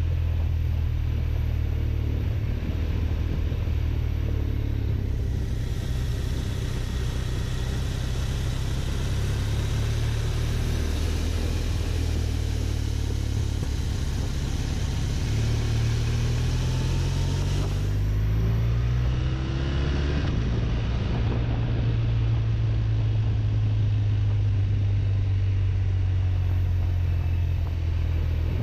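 BMW touring motorcycle's engine running at road speed with a steady low drone, overlaid by wind rush that grows louder for a stretch in the middle. Around the middle the engine note climbs and then falls back as the bike speeds up and slows again.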